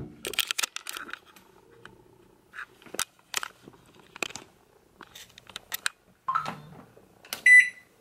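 A thump, then scattered light clicks and knocks of handling at a microwave oven, then one short beep from its control panel near the end.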